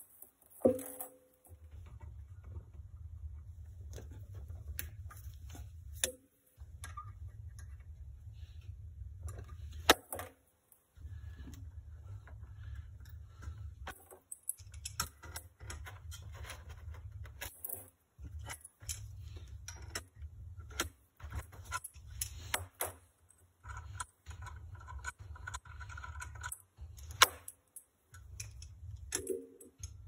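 Metal clinks, taps and light rattles of torch gear and hand tools being handled, over a low rumble that stops and starts every few seconds.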